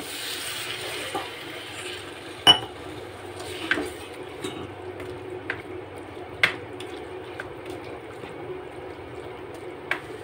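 Water poured from a steel tumbler into a pan of frying tomatoes and capsicum, with a brief hiss at first. A slotted spatula then stirs the sauce, knocking sharply against the nonstick pan several times, loudest about two and a half seconds in.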